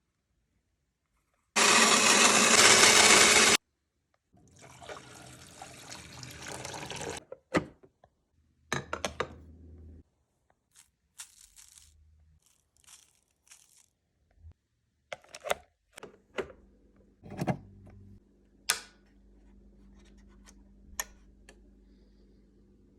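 A drip coffee brewer being set up and run: a loud rush of water early on, then water filling with rising level, scattered clicks and knocks of handling, and from about two-thirds of the way through a steady low hum as the brewer runs.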